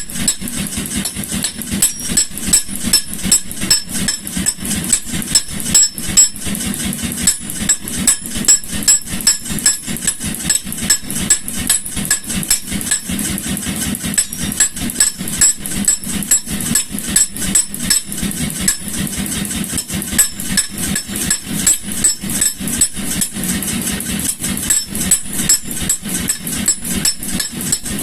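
Power hammer striking hot steel bar stock in a fast, steady rhythm of blows, with its motor running underneath, shaping a poker.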